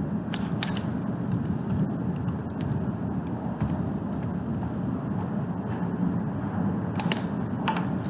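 Scattered clicks of a computer keyboard and mouse as line dimensions are entered in CAD software, over a steady low background hum.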